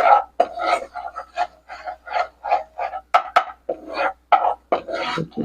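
A metal spoon scraping and stirring flour roasting in ghee in a kadhai, with rhythmic strokes about three a second.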